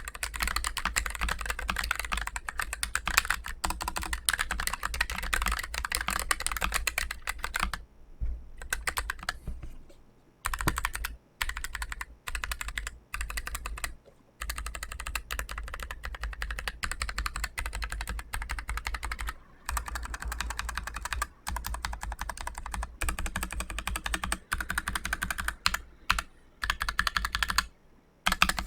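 Continuous fast typing on a Keychron K3 Pro low-profile mechanical keyboard with Gateron low-profile Brown tactile switches: rapid clacking keystrokes, broken by several brief pauses.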